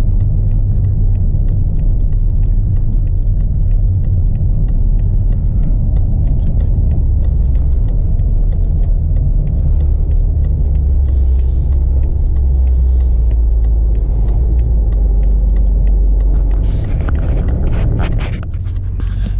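Steady low rumble inside the cabin of a BMW X5 M driving slowly, its twin-turbo V8 running at low revs under the road noise. The rumble eases off near the end as the SUV comes to a stop, and knocks and rustling sound close to the microphone.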